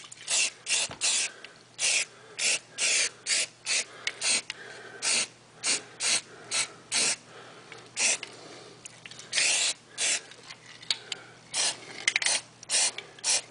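Aerosol can of spray primer sprayed in many short hissing bursts, about two a second, with one longer burst about nine and a half seconds in, laying a primer coat on bare metal.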